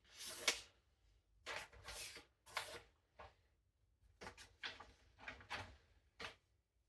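A sharpened knife edge slicing through a sheet of paper in a sharpness test: a series of about ten short papery swishes and rustles, the first the loudest.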